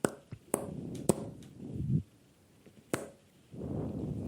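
A man snoring into a phone: two long snores, the first swelling to its loudest just before it breaks off about two seconds in. Several sharp clicks fall between them.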